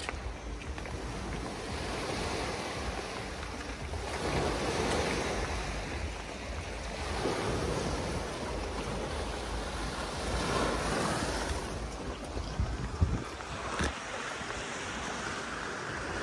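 Small sea waves washing onto a pebble shore, the sound rising and falling in surges a few seconds apart, with wind rumbling on the microphone. A few sharp knocks near the end.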